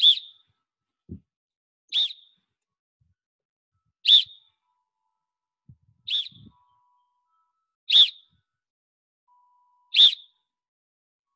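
Sports whistle blown in six short, sharp blasts about two seconds apart, each blast cueing one repetition of a lacrosse draw drill.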